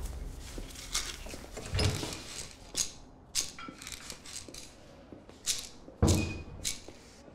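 A small pill bottle being handled and opened by hand: a string of separate sharp clicks and knocks, with a heavier knock about six seconds in.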